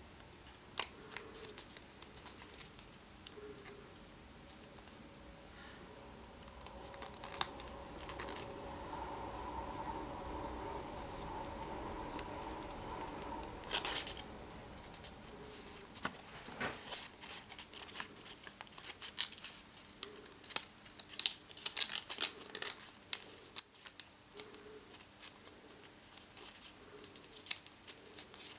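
A sheet of origami paper being folded and creased by hand: scattered crisp crinkles, rustles and taps as the paper is pressed and flattened, with a louder crackle about halfway through. A steady background hum rises for several seconds in the middle.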